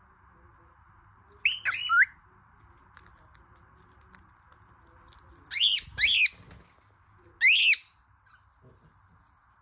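Cockatiels squabbling over food, letting out short, harsh arching calls in three bouts: about a second and a half in, again around five and a half seconds, and once more near the end.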